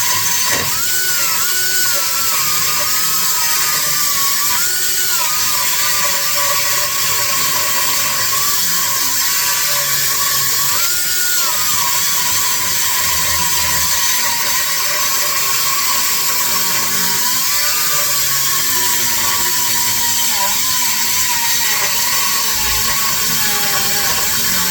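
Die grinder running continuously, grinding metal: a steady high whine over a harsh hiss, its pitch sagging when pressed into the work and jumping back up when eased off, several times.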